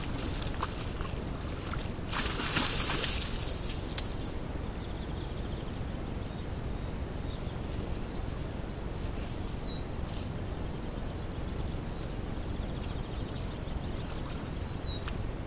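Wild boar wallowing in a shallow muddy puddle: a burst of splashing about two seconds in, then a single sharp click, over the camera trap's steady hiss. A few faint high chirps come later.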